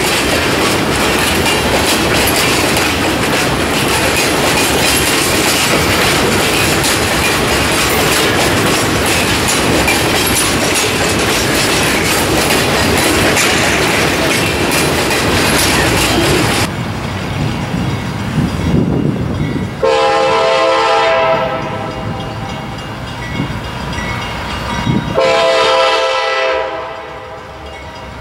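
Freight car wheels rolling past close by on the rail, a loud steady rumble and clatter, cutting off abruptly about two-thirds of the way in. Then a CSX GE AC4400CW locomotive's air horn sounds a chord, loud in two long blasts near the end.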